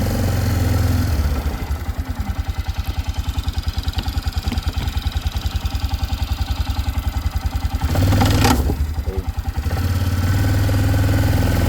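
Four-wheeler (ATV) engine running, dropping to a slow, even putter for several seconds, revving briefly about eight seconds in, then settling back to a steady run.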